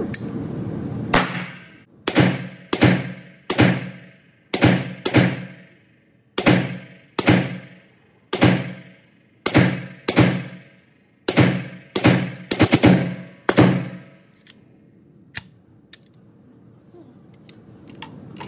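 Century Arms Draco 7.62x39 AK pistol fired semi-automatically: a string of about nineteen sharp shots, spaced a half-second to a second apart, each ringing out in the echo of an indoor range. The firing stops about three-quarters of the way through, followed by a few faint clicks.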